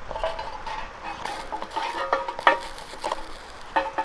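Metal tongs scraping and clicking against a stainless steel mess tin as a bannock is turned while dry-frying, with a few sharp clicks.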